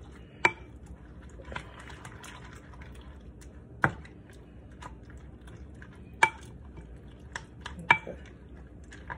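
A fork stirring pasta in a creamy soup-and-broth mixture in a glass baking dish: soft wet stirring with several sharp clicks of the fork against the glass, the loudest about half a second, four, six and eight seconds in.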